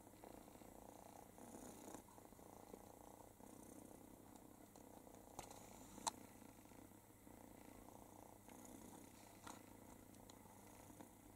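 Faint, steady purring of a domestic cat, with a single sharp click about six seconds in.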